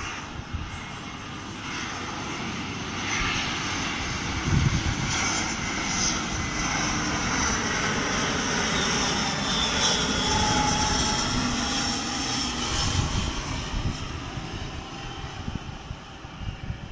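Jet engine noise of an Airbus A320 airliner on final approach with its landing gear down, growing louder over the first few seconds, loudest about ten seconds in, then fading as it passes. A whine in the noise slides down in pitch as the plane goes by.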